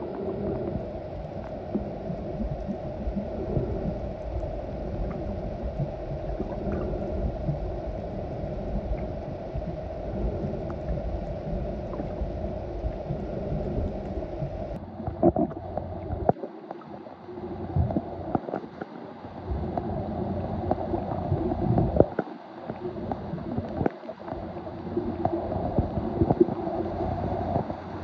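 Muffled underwater sound picked up by a camera held below the surface in shallow sea water: a steady low rumble and gurgling. In the second half it turns uneven, with scattered knocks and thuds.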